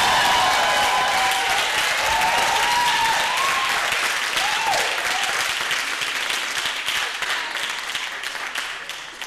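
Audience applauding and cheering at the end of a live kalimba piece, with whoops over the clapping in the first few seconds; the applause thins and fades toward the end.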